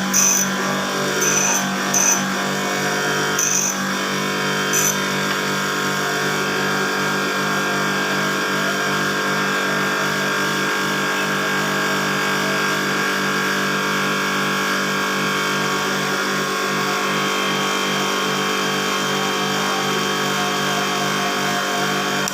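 A small electric motor running steadily at constant speed, with a few short high-pitched squeaks or clicks in the first five seconds.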